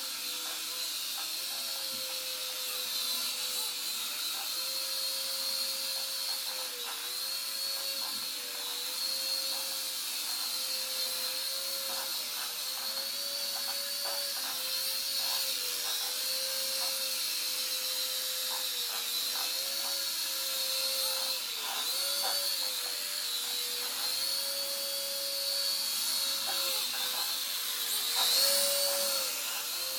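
Air Hogs Helix 360 toy's small electric motors and rotors whirring in flight, a steady high whine whose pitch dips briefly and comes back up every few seconds as the throttle changes, with a few faint ticks.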